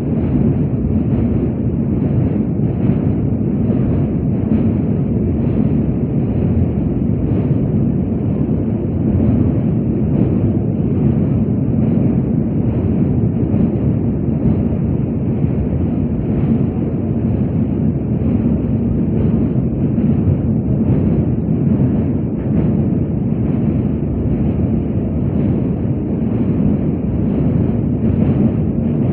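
Passenger train running across a steel truss bridge, heard from inside the carriage at an open window: a steady, heavy rumble of wheels on rails with a faint light clatter over it.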